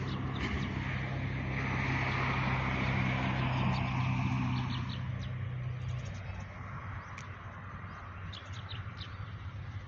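A motor vehicle passes: a steady engine hum that swells, is loudest about three to four seconds in and fades out around six seconds. Small birds chirp briefly now and then.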